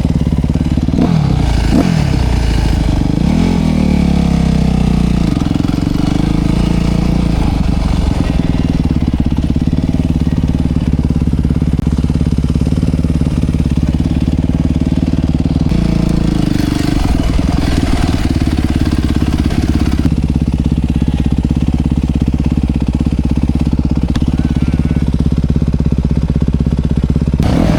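Dirt bike engine running close by, its pitch rising and falling with the throttle in the first few seconds, then holding fairly steady.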